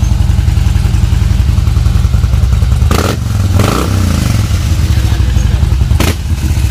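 Big motorcycle engines idling with a deep, steady rumble, one revving up and back down about halfway through. Two sharp knocks sound over it, near the middle and near the end.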